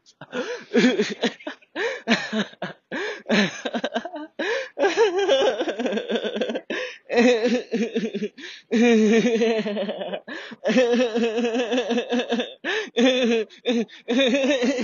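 A man laughing on purpose and almost nonstop, in long runs of pitched laughter with short breaks between them.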